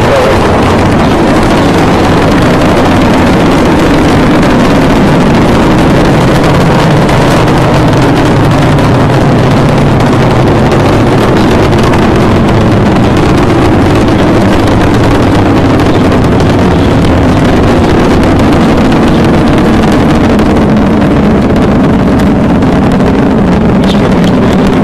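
Space Shuttle Discovery's solid rocket boosters and main engines firing during liftoff and climb: a loud, steady rocket roar with a deep rumble, holding level throughout.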